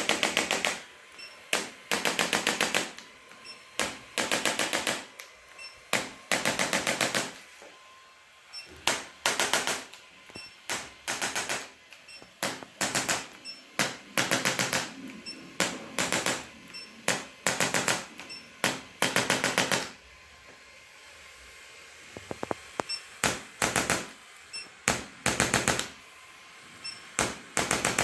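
Electric chiropractic adjusting instrument firing bursts of rapid clicks, each burst lasting about half a second to a second and a half, with short pauses between and a longer lull about two-thirds of the way through.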